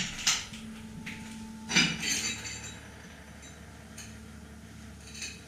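Hard debris clinking and rattling on a tiled floor: two sharp knocks at the start, then a short cluster of ringing clinks about two seconds in, followed by a few faint ticks.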